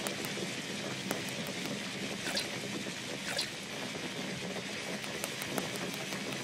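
Sugar syrup boiling in a pan on an induction cooker: a steady crackling fizz with many small sharp pops, as a skewer of orange segments is turned through the syrup to coat them for tanghulu.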